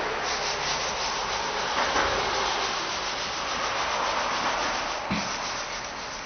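Steady rubbing noise, with one short knock about five seconds in.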